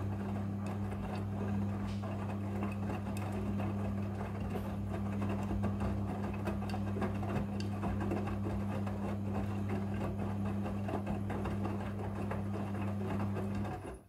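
Front-loading washing machine running its wash tumble: a steady motor hum, with the clothes swishing and many small knocks inside the drum. It cuts off suddenly near the end as the drum stops turning.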